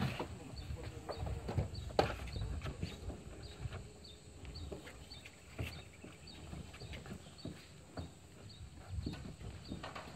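Irregular knocks and thuds of feet shuffling on wooden jetty planks while men haul hand over hand on a long rope, over a low rumble.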